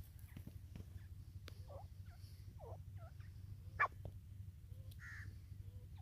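Grey francolins giving a few short, scattered calls, with one sharp louder note about four seconds in, over a steady low hum.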